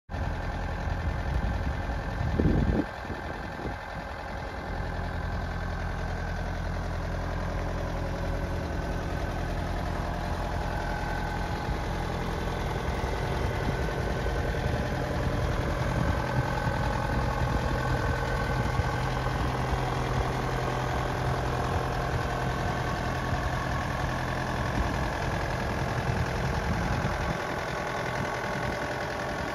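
Bobcat 5600 Toolcat's diesel engine idling steadily, with a brief louder rumble about two and a half seconds in.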